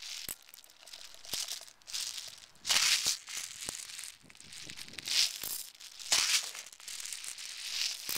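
Airsoft BBs rattling as they are shaken and poured from a container into a gun magazine, in a series of irregular shaking bursts with a few sharp plastic clicks between them.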